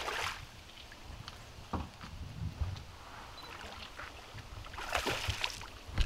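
A hooked steelhead thrashing at the water's surface beside the boat, with a splash at the start and another about five seconds in.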